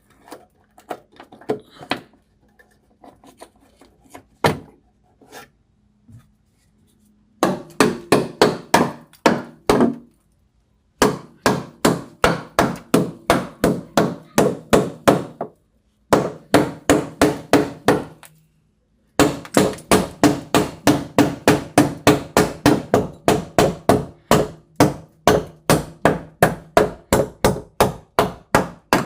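Hammer blows in a fast, even rhythm, about three to four a second, in runs of a few seconds broken by short pauses; only a few scattered knocks come before the hammering starts, about seven seconds in.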